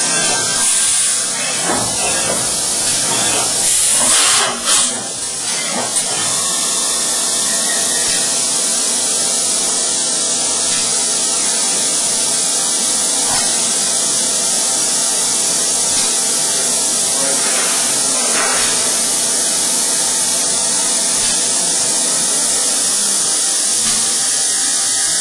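Fanuc Robodrill CNC milling machine at work drilling crankshaft oil holes, with a loud, steady hissing spray. A brief louder surge and a few knocks come about four to six seconds in.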